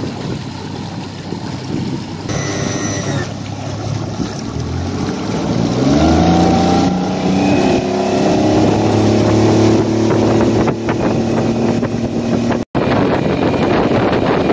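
Mercury 40 outboard motor running at low speed, then throttled up about five seconds in, its pitch rising over a couple of seconds and settling into a steady high run. Water rushes past the hull under the engine sound.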